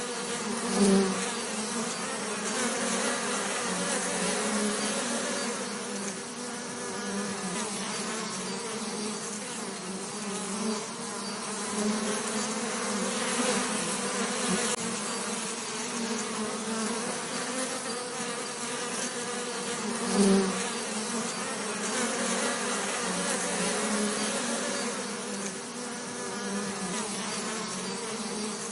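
Bees buzzing steadily in a continuous drone, swelling briefly louder twice, about a second in and about twenty seconds in.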